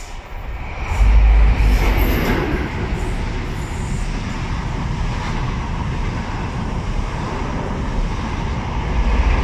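Electric intercity train passing on the line close by, "buzzing past": a loud, steady, deep noise that swells about a second in and keeps up as the carriages go by.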